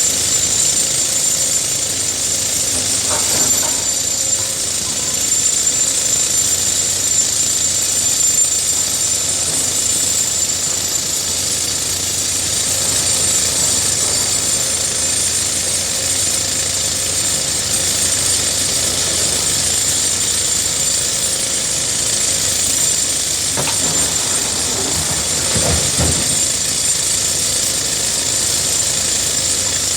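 Case excavator working: a loud, steady mechanical noise with a thin high whine running through it.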